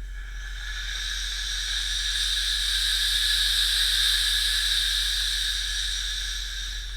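Compressed air hissing steadily out of a pneumatic line on a CNC router's auto-tool-change spindle setup. It swells to its loudest about midway and eases off toward the end.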